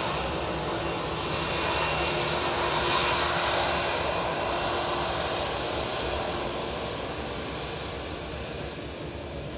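Jet airliner passing close by: a steady rushing engine noise that swells about three seconds in and then slowly fades away.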